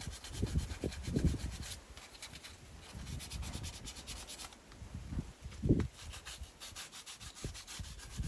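A hand tool or abrasive is worked back and forth on PVC water pipe during a leak repair, making quick, repeated rubbing strokes. The strokes come in several runs with short pauses, and a low knock sounds about two-thirds of the way through.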